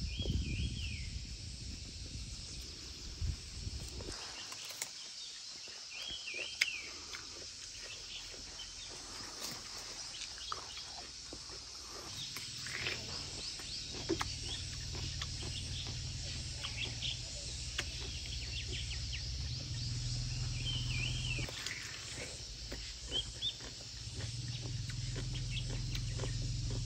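Steady insect chorus with short, curling bird calls now and then, and scattered crisp clicks from a knife peeling a raw green melon and from bites into it. A low rumble comes in about halfway through and grows louder near the end.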